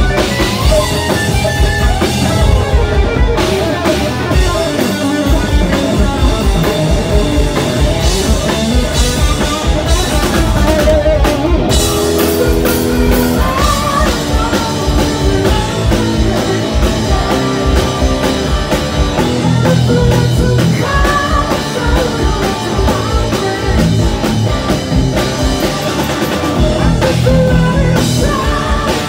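Live rock band playing loud: distorted electric guitar from a Telecaster-style guitar over a driving drum kit, with a male lead vocal sung into the microphone.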